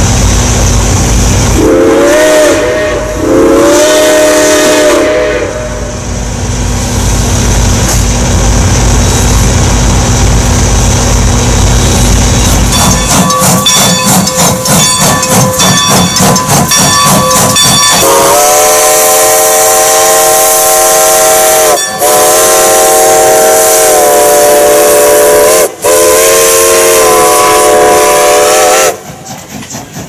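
Reading Blue Mountain & Northern 425's Southern Pacific six-chime steam whistle gives two short blasts over a heavy low rumble. About thirteen seconds in, Strasburg Rail Road 90 takes over: its exhaust chuffs rhythmically for a few seconds, then its Reading six-chime steam whistle sounds three long chords.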